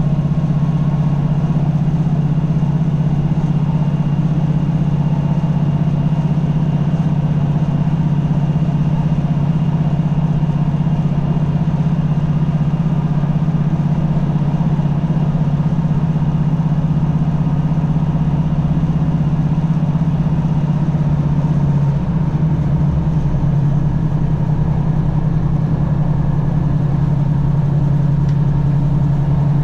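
Class 156 Super Sprinter diesel multiple unit in motion, heard from inside the passenger saloon: the underfloor Cummins six-cylinder diesel engine gives a steady, loud low drone. About two-thirds of the way through the engine note shifts and takes on a regular pulsing beat.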